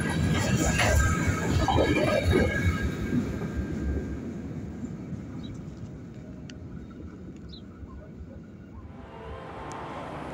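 Covered hopper freight cars rolling past on steel wheels, a rumble with some high wheel squeal, fading away as the end of the train passes. Near the end a different, quieter steady hum with a few low tones takes over.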